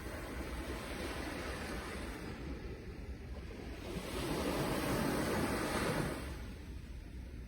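Ocean waves breaking on a shore: a steady wash of surf, with one wave building and crashing from about four seconds in to about six seconds in, then drawing back.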